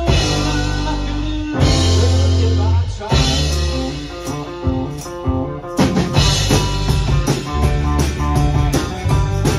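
Live rock band playing with electric guitars, bass, keyboard and drum kit. Held chords ring for the first few seconds, the sound thins out briefly, and about six seconds in the full band comes back in with steady, driving drums.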